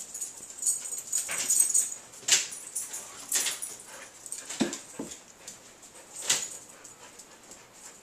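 A dog whimpering in short bursts, about six times over several seconds.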